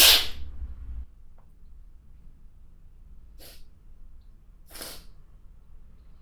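A woman sneezes once, loudly, right at the start. Two short breathy sounds follow, about three and a half and five seconds in.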